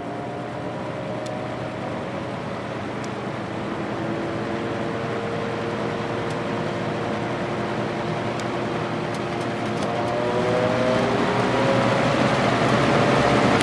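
Vintage 1983–84 Lasko box fan running, its motor giving a pronounced hum that resonates through the plastic frame, with several tones drifting slowly in pitch over the rush of air from the blades. The air noise grows louder over the last few seconds.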